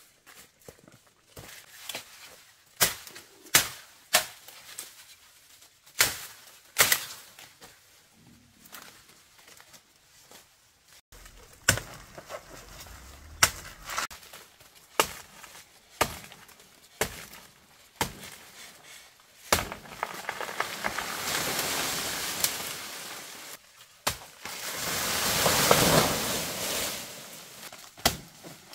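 Sharp knocks and chops at uneven intervals, then a longer stretch of rustling noise that swells and fades near the end.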